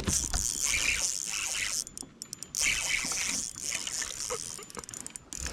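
Creek water running: a steady hiss that drops out briefly about two seconds in and again near the end.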